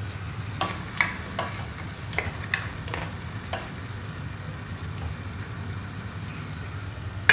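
Spatula stirring a pot of bubbling sweet and sour sauce, tapping the side of the pot in a run of light clicks during the first few seconds, then stirring on over a steady low hum and faint bubbling hiss.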